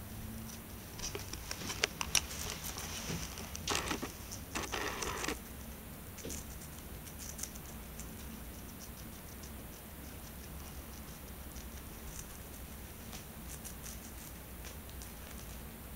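A Syrian hamster gnawing and chewing a crisp bok choy stem: quick small crunching clicks, denser and louder in the first five seconds, then faint and scattered.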